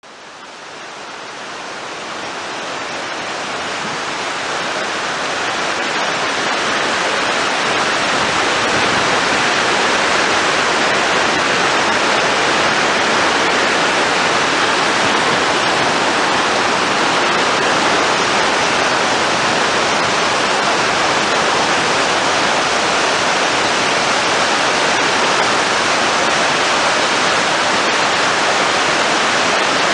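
A large waterfall in flood, swollen by heavy rain, making a steady, dense rush of falling water. It swells up over the first several seconds, holds at full strength, then cuts off abruptly at the end.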